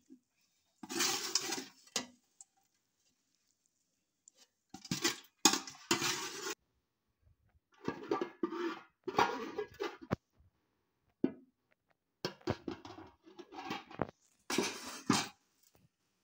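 Metal spoon scraping and clinking against a steel cooking pot in several short bouts, as chicken curry is spooned out and layered over rice for biryani.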